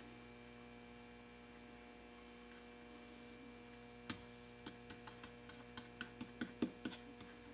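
Steady low electrical hum. From about halfway, a dozen faint, irregular clicks and taps as hands press and smooth clear protective film onto the motorcycle's rear fender.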